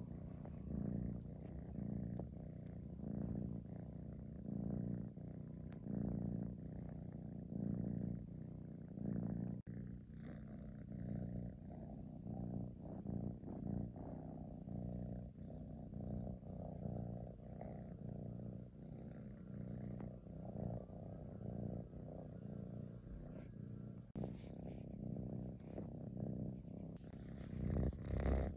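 A British Shorthair tabby kitten purring close up, a steady rumbling purr that swells and fades with each breath. Near the end there is a brief, louder rustle of the fleece as the kitten moves.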